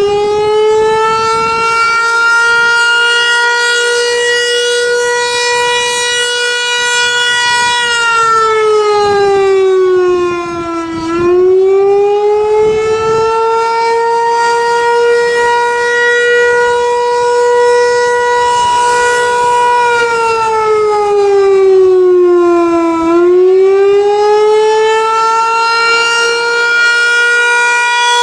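Federal Signal 508-128 electromechanical outdoor warning siren sounding its attack signal: it finishes winding up to full pitch about a second in, then holds a loud wail that twice sags in pitch and climbs back up, about twelve seconds apart.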